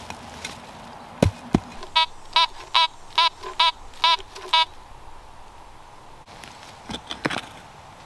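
Two knocks of a hand digger in soil. Then a Fisher F19 metal detector sounds about seven short, quick beeps as its coil is swept back and forth over a buried metal target. A couple more digging knocks come near the end.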